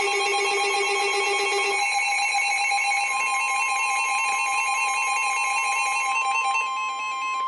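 Emergency Alert System attention signal: a loud, steady electronic alarm tone made of several fixed pitches, its lowest pitch dropping out about two seconds in while a tone near 1 kHz holds on. It announces the start of a new weather alert.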